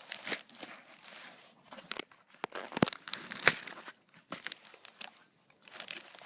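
Plastic shrink-wrap being picked at and torn off a card-game box, crinkling and ripping in irregular crackly spurts with short pauses between them.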